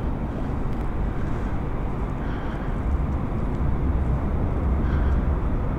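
Honda CB125's single-cylinder engine idling in neutral, a steady low rumble.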